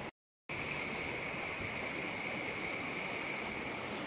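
Shallow rocky mountain stream running over stones, a steady rushing hiss. The sound drops out completely for a moment just after the start. From about half a second in, a steady high whine sits on top of the water.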